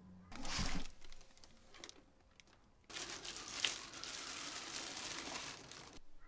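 Clear plastic wrapping crinkling as it is handled around a stainless steel ultrasonic cleaner tank: a short loud burst with a low bump under a second in, then continuous crinkling from about three seconds in that stops just before the end.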